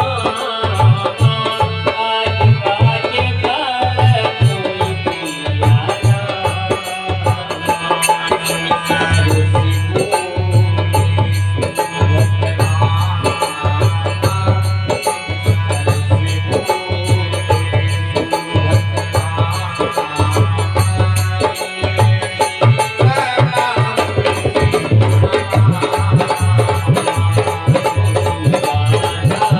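Devotional folk music: a tabla-style hand-drum beat under a melody line, with no clear singing.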